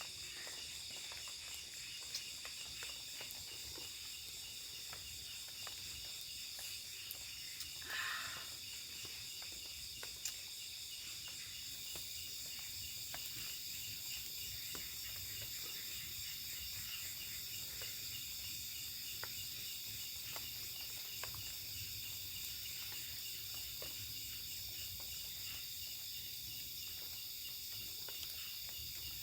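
Steady chorus of night insects: several high-pitched trills layered together without a break, with a few faint clicks and a brief rustle about eight seconds in.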